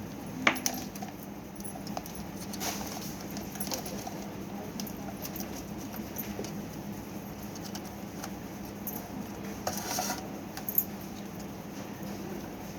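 Scattered light clicks and rattles of small parts and wiring being handled during electric fan repair, over a steady low hum, with a brief rustle near the end.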